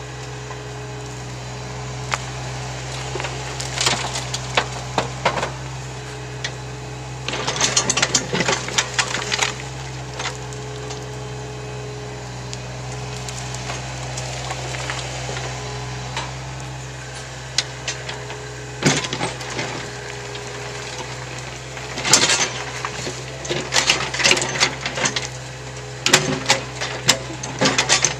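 John Deere compact excavator's diesel engine running steadily under load while its bucket digs into and dumps a pile of dirt and rock. Bursts of clattering and scraping come from stones knocking against the steel bucket and falling, several times, heaviest in the middle and near the end.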